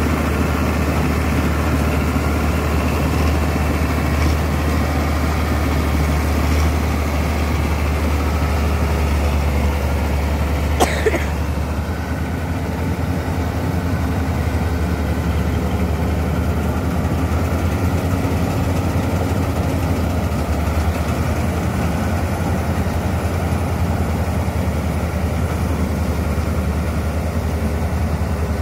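Combine harvester's diesel engine and machinery running steadily with a strong low drone, getting slightly quieter after about twelve seconds as it moves away. About eleven seconds in there is a brief sharp click with a short squeal.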